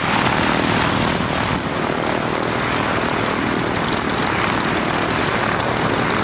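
Piston aircraft engine and propeller running steadily.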